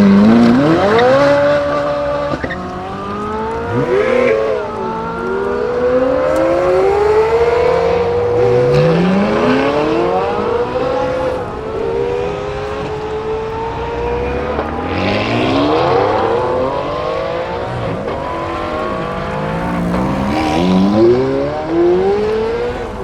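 Supercar engines accelerating hard away from a standstill and through the gears, the pitch climbing and then dropping at each upshift, one car after another with their sounds overlapping.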